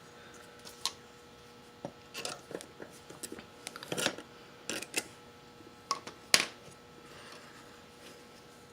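Irregular metallic clinks and knocks from metal parts and hand tools being handled during an ATV wheel swap, with the loudest knocks about four and six and a half seconds in.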